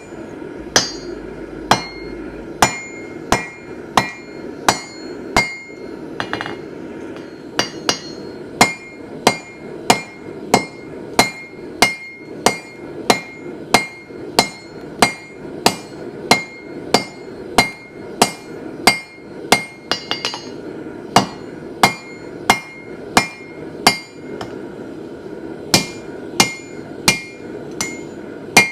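Hand-forging: a 4-pound hammer striking hot steel stock over the corner of an anvil in steady blows, about three every two seconds, each with a short metallic ring. The heavy blows are drawing down and reducing thick stock.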